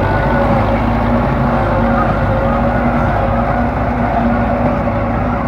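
Belarus MTZ tractor's diesel engine running steadily under load as its rear blade drags through wet mud, a continuous rumble with a steady whine held above it.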